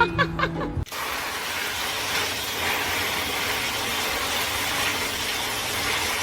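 Background music cuts off under a second in. A steady rushing hiss follows and runs on evenly without rhythm or pitch.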